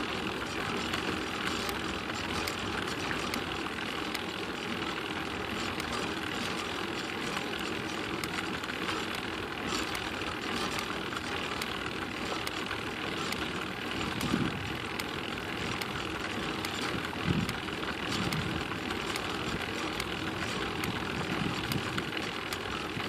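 A recurring clicking noise from a vehicle: faint, irregular ticks over a steady running noise, with a few dull low thumps about two-thirds of the way through.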